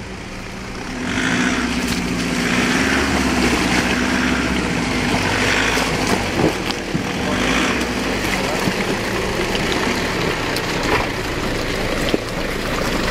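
Nissan four-wheel-drive wagon's engine working under load as it climbs through a deep, muddy rut: a steady engine drone that rises about a second in, with several surges of louder noise and a few sharp knocks.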